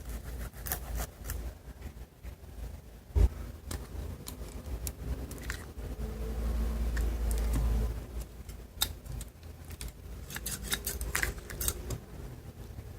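Food-preparation handling sounds: scattered clicks, taps and light scrapes of utensils and containers, with one sharper knock about three seconds in and a low rumble swelling a little past the middle.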